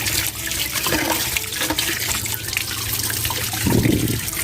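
Tap water running steadily as boiled cow skin (rambak) is rinsed clean under it by hand, with a brief louder surge of water about three and a half seconds in.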